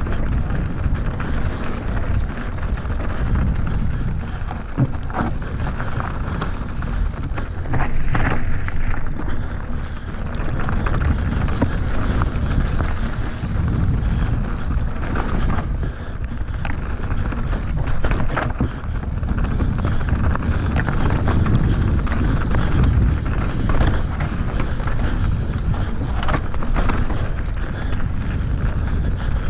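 Mountain bike descending a rocky dirt singletrack: wind buffeting the microphone over the rolling of knobby tyres on gravel, with frequent clicks and knocks as the bike jolts over rocks.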